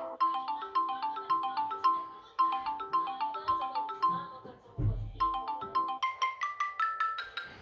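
Samsung Galaxy Grand Prime ringtone playing: a quick, repeating marimba-like melody of short notes, which moves to a higher-pitched repeating pattern about six seconds in. A low thump sounds about five seconds in.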